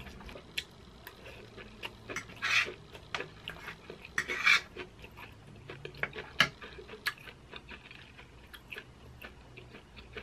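A metal fork clinking and scraping against a metal baking sheet while scooping up baked corn cheese: scattered clicks and a couple of short scrapes, with soft chewing in between.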